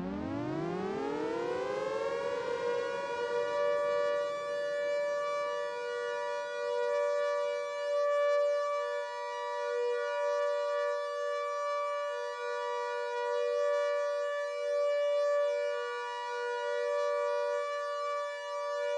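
Air-raid siren winding up in pitch over the first few seconds, then holding a steady two-note wail: the continuous alert signal.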